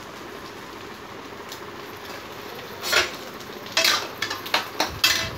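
Metal spatula scraping and stirring egg in a black wok: a run of loud scrapes and clatters begins about halfway through, over a steady frying hiss.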